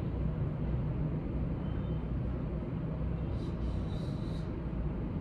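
Steady low background hum, with a short scratchy squeak of a dry-erase marker writing on a whiteboard about three and a half seconds in.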